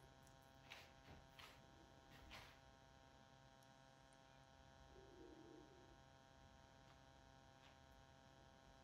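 Near silence: a faint steady electrical hum, with a few faint ticks in the first two or three seconds.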